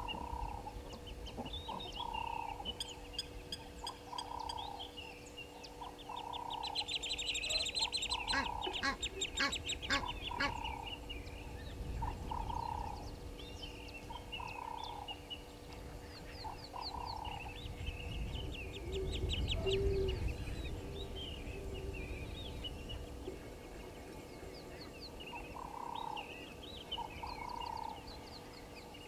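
Egyptian goose calling with short honks repeated roughly every second and a half, over many high thin peeps and chirps. A dense burst of rapid high chattering comes about seven to ten seconds in.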